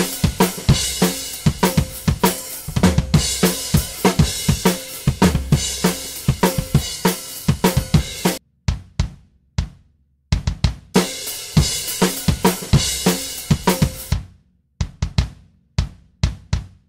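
Recorded drum-kit loop playing back, with kick, snare and cymbals in a steady groove. The original kick is muted and replaced by a sampled BFD kick triggered from MIDI. The full groove drops out twice, about eight seconds in and again near the end, leaving scattered single hits.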